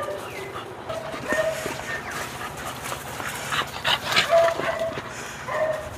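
Puppies playing rough, giving short whines and yips several times amid scuffling and knocks, with the busiest scuffling about four seconds in.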